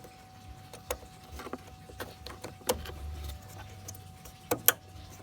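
Small plastic clicks and taps as an H11 headlight bulb is handled and plugged into its wiring connector, with two sharp clicks close together near the end.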